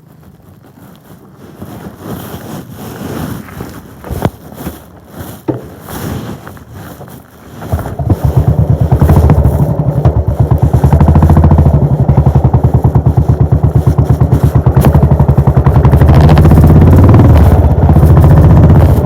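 A few clicks and handling noises, then about eight seconds in the Royal Enfield Bullet 500's single-cylinder engine starts and runs on its exhaust with a steady, even thumping beat.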